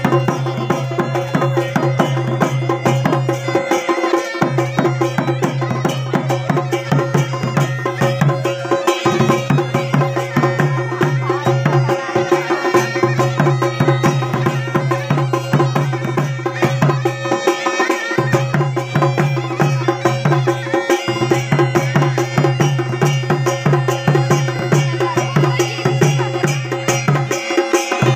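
Chholiya folk band playing: a fast, steady drum beat under a sustained reedy drone and melody typical of the masakbeen (bagpipe). The low drone drops out briefly several times.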